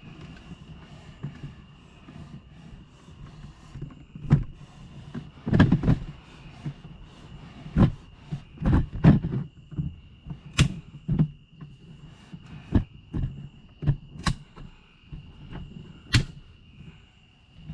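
Irregular knocks and clunks, a dozen or so, with a steady high insect trill behind them.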